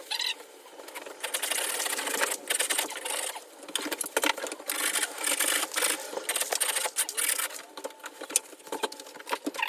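A drywall blade scraping and rubbing over a taped plaster ceiling patch in quick, repeated strokes.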